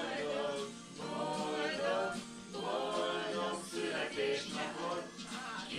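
A small group of people singing a song together, with held, wavering notes.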